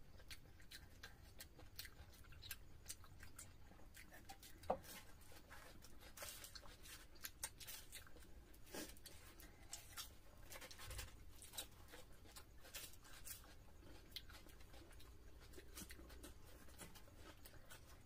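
Faint eating sounds of two people eating luchi and chicken curry by hand: scattered small clicks and smacks from chewing and fingers tearing and scooping food, with one sharper tap about five seconds in.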